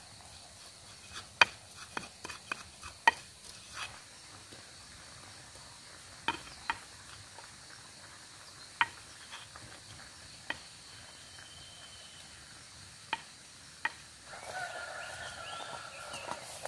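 Scattered sharp clicks and knocks as cooking utensils and ingredients are handled, the loudest two in the first few seconds. About three-quarters of the way through, a steadier sound with a wavering tone comes in as a pestle grinds chili paste in a cobek mortar.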